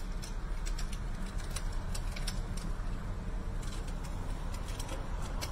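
Vehicle engine idling, a steady low rumble heard from inside a car's cabin, with scattered light clicks over it.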